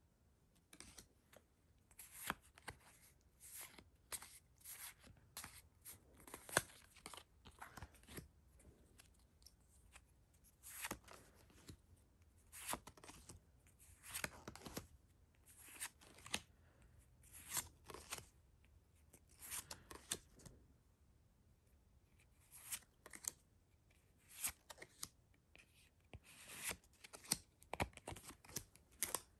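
Pokémon trading cards being flipped through by hand, each card sliding off the stack with a faint, short swish or flick, about one or two a second with a brief pause partway through.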